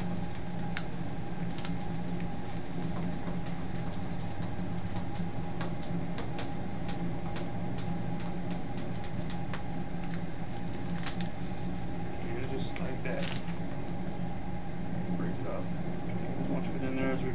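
A cricket chirping in a steady regular pulse, about two chirps a second, over the even low sound of a propane burner running under a brew kettle. Occasional light clicks come from the stirring paddle in the pot.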